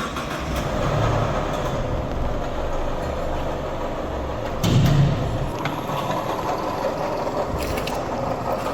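Mazda CX-30 engine running just after start-up, with a steady mechanical noise from the accessory-belt area that the owner traces to a worn belt tensioner rather than the water pump. A brief louder swell comes about five seconds in.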